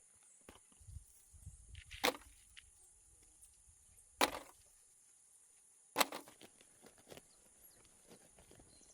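Three sharp chopping strikes of a blade, about two seconds apart, with smaller knocks and rustling between.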